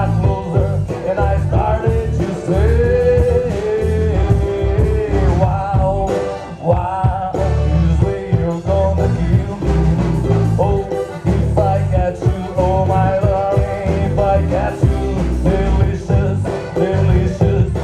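Music with a sung vocal line over a steady beat and guitar, in a country style.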